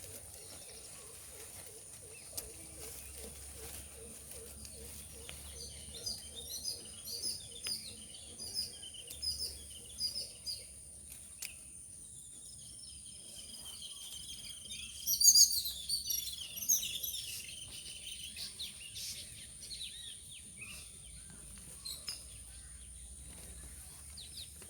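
Birds chirping and calling, with a louder flurry of calls a little past the middle, over a steady high-pitched hum.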